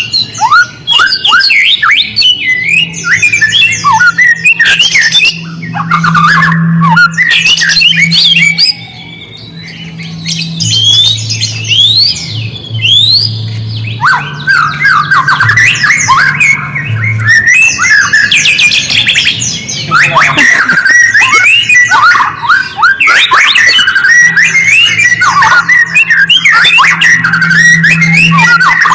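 A songbird singing continuously: a fast, varied string of rising and falling whistles and chattering notes, with a short dip in the song about nine seconds in. It is a lure song meant to make white-rumped shamas answer. A low steady hum runs beneath it at times.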